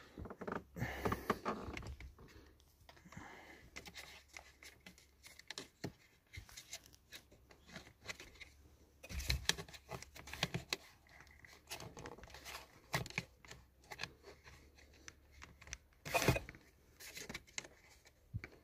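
Scattered clicks, knocks and rustling of hands working at a car's steering wheel, handling the driver's airbag module and its plastic trim.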